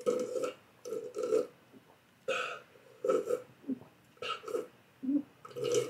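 A person gulping a drink from a cup in a quick run of loud swallows, close to the microphone, roughly two gulps a second.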